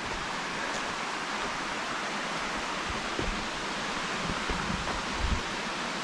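Steady rushing of Hungarian Falls, a waterfall pouring down a drop of 60 to 70 feet, heard from its rim. A few low bumps come through in the second half.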